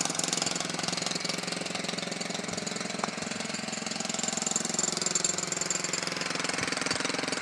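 A powered construction machine running with a rapid, even hammering beat over a steady low hum, like a jackhammer at work.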